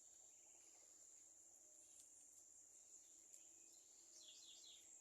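Faint rural ambience: a steady high-pitched insect drone, with a few quick bird chirps about four seconds in.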